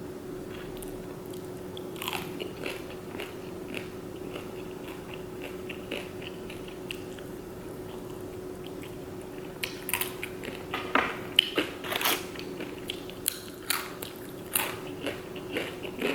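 Close-up chewing and biting of crispy fried chicken: wet mouth clicks and crunches, sparse at first and busier and louder in the second half. A faint steady hum runs underneath.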